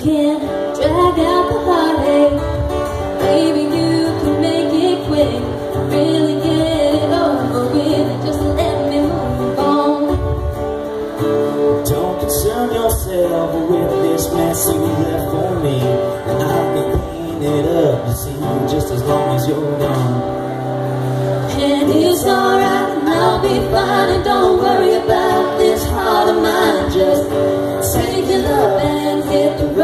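A woman singing over strummed acoustic guitar in a live vocal duet. The voice breaks off briefly about two-thirds of the way through, then the singing resumes.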